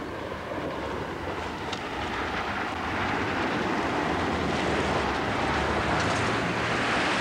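Engines of military vehicles driving over rough ground, a steady low engine note under a noisy rumble that grows steadily louder.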